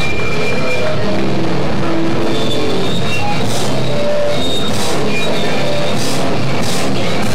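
Live rock band playing loud: electric guitar and drum kit, with cymbal crashes every second or so.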